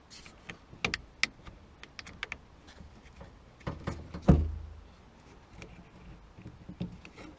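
Scattered clicks and light knocks of a car door lock mechanism and its cable being handled and pushed into place, with one louder knock a little over four seconds in.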